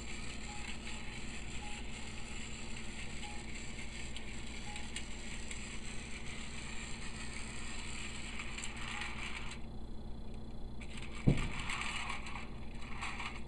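Battery-powered Tomy Plarail Thomas toy train running on plastic track, a steady small-motor whir with wheel and track rattle. The high hiss drops away about ten seconds in, and a single sharp thump comes a second later as the train is handled at the yard.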